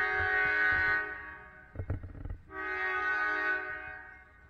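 Norfolk Southern diesel locomotive's air horn sounding two long blasts, a chord of several tones. The first cuts off about a second in, and the second starts about two and a half seconds in and fades out near the end.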